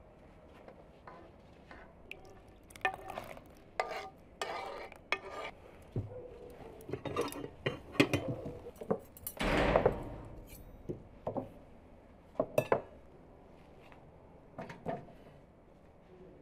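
Tableware being handled: a frying pan, china plates, bowls and metal spoons and forks set down and knocked together in a string of short clinks and knocks, with one louder, longer scrape a little after the middle.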